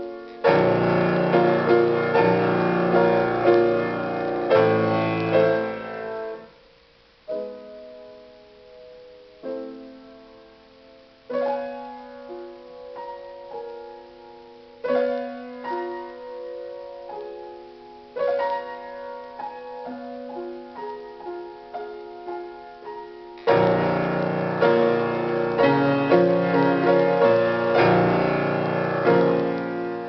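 Solo acoustic piano playing a composed piece. It opens with loud full chords, breaks off briefly at about six seconds, continues in a quieter, sparser passage, then swells back to loud full chords about two-thirds of the way through.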